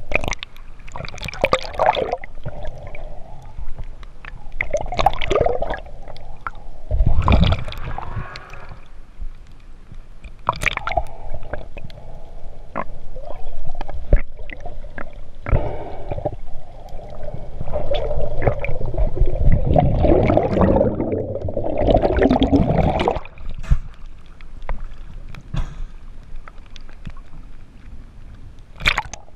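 Muffled sloshing, gurgling and bubbling of water around a camera moved underwater and up to the surface, in irregular swells with scattered clicks.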